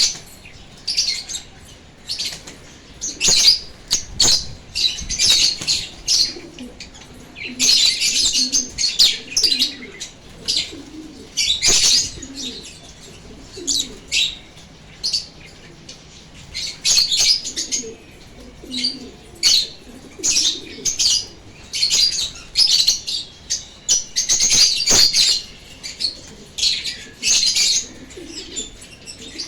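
Lovebirds chattering: shrill, scratchy chirps in repeated bursts, with a few sharp clicks among them.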